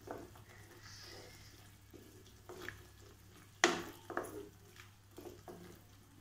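Wooden spatula stirring ash gourd in coconut milk in a cooking pot: wet stirring with scattered knocks and scrapes of the spatula against the pot, the loudest knock a little past halfway.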